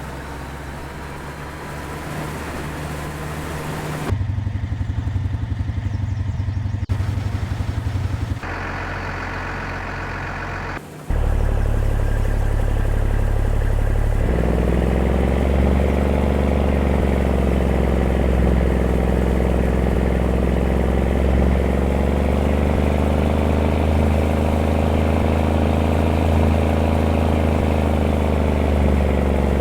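An engine running, heard in several short stretches that change abruptly from one to the next. From about fourteen seconds in, it settles into a steady engine note that slowly rises and falls a little in pitch.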